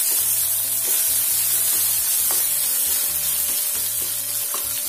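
Cumin seeds, curry leaves and freshly added grated ginger sizzling in hot oil in a non-stick pan, with a wooden spatula stirring and scraping through them.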